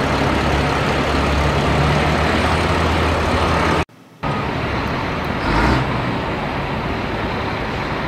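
A heavy vehicle's engine runs steadily with a low rumble. It cuts out abruptly for a moment about four seconds in, then carries on.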